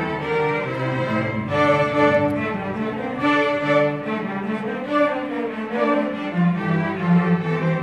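String orchestra of violins and cellos playing a piece live, with sustained bowed notes and a low cello line underneath, heard from the audience seats in the hall.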